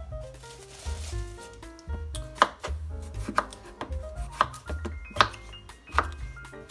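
A knife cutting unpeeled russet potatoes on a cutting board, with sharp strikes about once a second in the second half. Background music with a rhythmic bass plays throughout.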